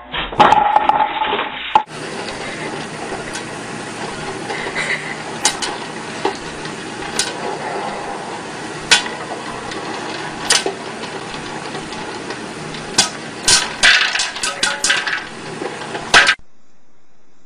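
Popcorn popping in a popper with a clear plastic dome: a steady sizzle with sharp pops scattered through it, coming thickest in the last few seconds. A brief loud clatter at the very start.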